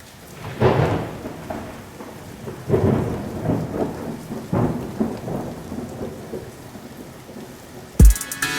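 Thunder rumbling over steady rain, with three swelling rolls in the first five seconds. Electronic music with heavy bass hits starts near the end.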